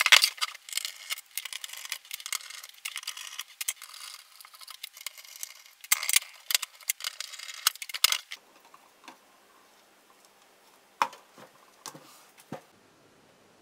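Metal preamplifier chassis being turned over and handled on a wooden table: a busy run of knocks, scrapes and rattles of its sheet-metal casing, then, after an abrupt drop, a few separate soft clicks from handling the wiring underneath.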